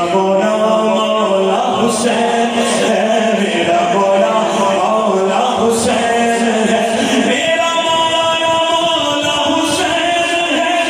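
A man singing an unaccompanied devotional kalam (naat-style recitation) into a microphone, in long held, gliding notes.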